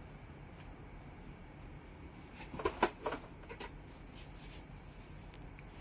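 Clothes and hangers being handled: a few brief rustles and clicks about halfway through, over a low steady room hum.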